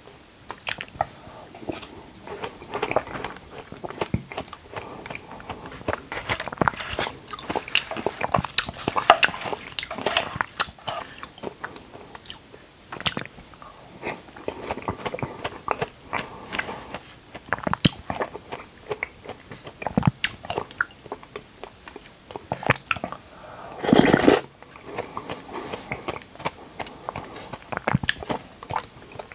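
Close-miked eating of dragon fruit: irregular biting and chewing with many small wet mouth clicks, and one louder, longer bite or mouth sound a few seconds before the end.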